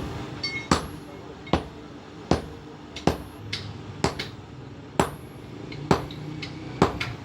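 A blacksmith's hammer striking leaf-spring steel on an anvil in a steady rhythm, a sharp blow about every three-quarters of a second to a second, some leaving a brief metallic ring.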